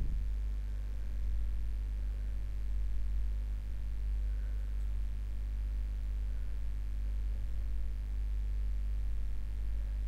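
A steady low electrical hum with no other clear sound.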